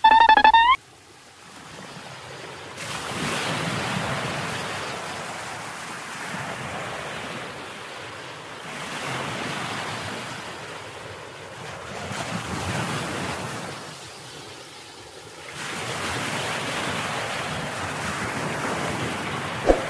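Sea waves washing against a rocky shore with wind on the microphone, the noise swelling and fading every few seconds. It opens with a short, loud, rising electronic tone under a second long, and a brief knock comes near the end.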